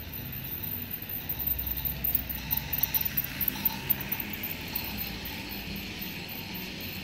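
Toy train running along its track, a rhythmic clicking and rattling of wheels over the rail joints that grows louder and is sharpest a couple of seconds in as the train draws near and passes.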